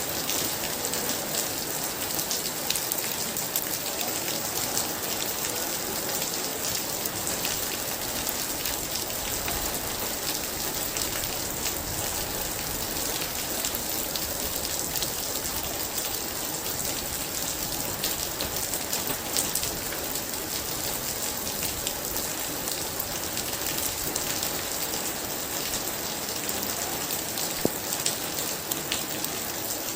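Very heavy rain falling steadily, a dense even hiss flecked with the ticks of individual drops striking a surface.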